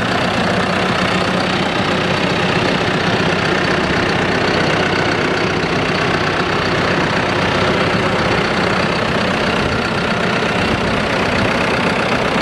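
2014 John Deere 5115M tractor's four-cylinder diesel engine idling steadily, heard close up beside the open engine bay.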